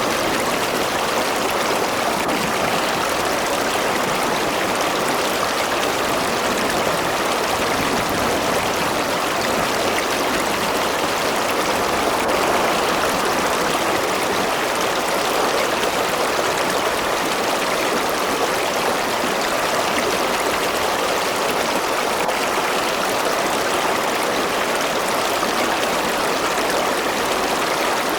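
A river or stream rushing steadily over rocks, a continuous even flow of water.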